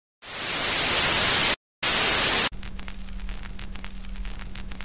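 Analog TV static: a loud hiss, cut off by a brief silence and then back for about another second, giving way to a quieter hiss with faint ticks and a steady low hum. This is the sound of a satellite TV feed breaking up as it is overridden by a pirate signal.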